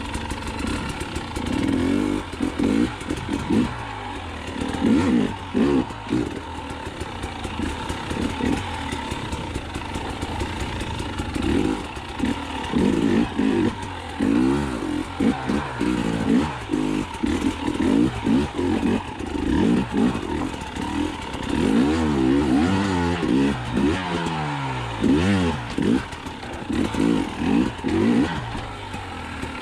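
Cold dirt bike engine running rough and being revved over and over, its pitch sweeping up and down with each throttle blip as it struggles to stay running. The rider blames the carburettor, which he says needs cleaning out.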